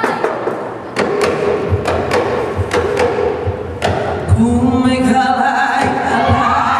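Ipu heke (Hawaiian double-gourd drum) being struck: a run of sharp slaps, then deep thumps. A little past halfway a woman's chanting voice comes in over the beat, the mele for a hula kahiko.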